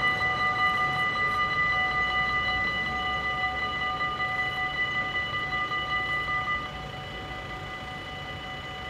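Dutch level-crossing warning bells ringing rapidly while the barriers lower. About two-thirds of the way in, with the barriers down, the louder part of the ringing stops and a quieter bell keeps going.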